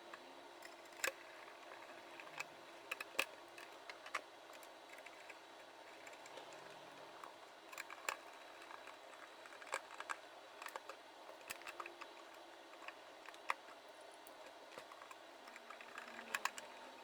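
Faint, irregular small clicks and taps of parts and screws being handled and fitted back into a small electronics case, over a steady low room hum.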